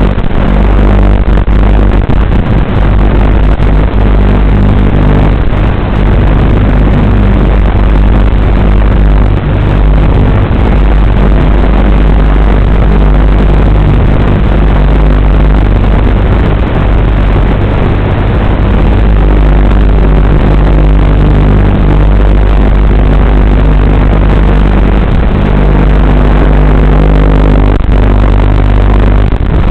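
WLToys 12418 RC car's electric motor and drivetrain running, heard close up as a loud, steady low drone with a rough edge.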